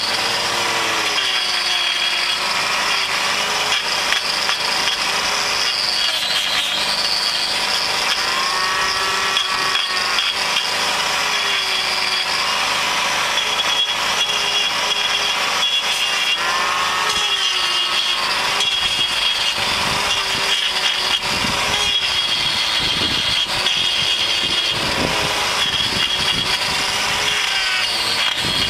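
Hand-held angle grinder with a hoof-trimming disc grinding down a cow's hoof horn. It runs steadily, its pitch wavering as the disc bites in and eases off.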